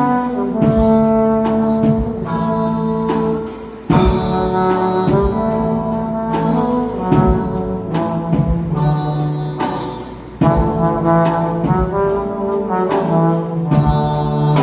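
Trombone playing a praise melody of long held notes over a backing track with drums. The phrases break off briefly about four and ten seconds in, then start again.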